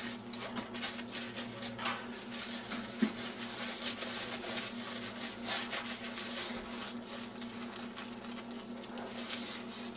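Butter in its paper wrapper being rubbed over the crusts of freshly baked buns: soft, repeated rustling and scraping strokes of paper.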